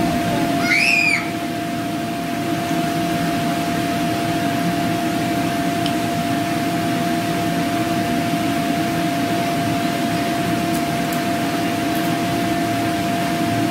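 Electric air blower of an inflatable water slide running steadily: a constant rushing noise with a steady hum. A brief high chirp sounds about a second in.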